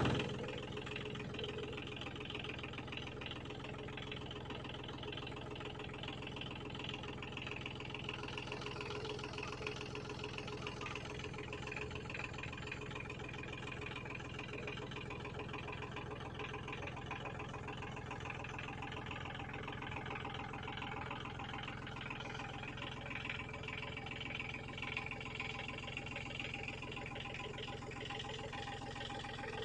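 Backhoe's diesel engine running steadily at an even pitch.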